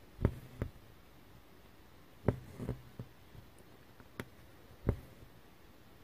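Hand cross-stitching on black 14-count fabric: the needle pops through the taut cloth and the thread is drawn after it. About seven sharp pops and taps, some with a short rustle of thread after them.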